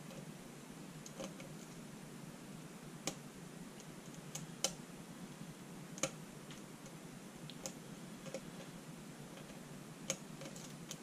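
Faint, irregular clicking of a lock pick working the pins of a pin-tumbler challenge lock under tension, with about half a dozen sharper clicks spaced a second or more apart.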